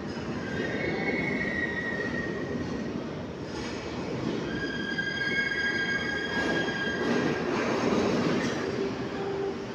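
Alstom-Bombardier Serie 5 (MR-15) metro train rolling slowly in on curved track, with a steady rumble from its running gear. High-pitched wheel squeal comes twice: briefly near the start, then longer and with several pitches from about four and a half to seven seconds in.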